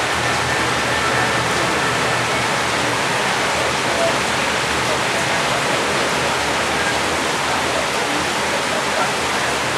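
Steady rain: an even, dense hiss of water without breaks.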